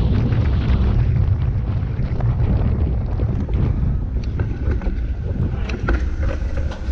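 Wind buffeting the microphone of a handlebar-mounted action camera on a racing motorcycle, a loud steady rumble with the bike's engine and running noise mixed underneath. A few short knocks come past the middle.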